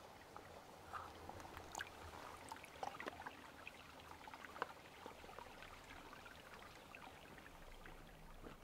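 Shallow mountain stream trickling and splashing faintly over rocks, with many small drips and plinks.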